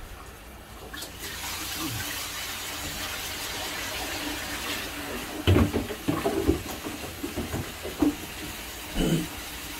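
Steady rushing of water, starting about a second in, with several louder knocks and thuds in the second half.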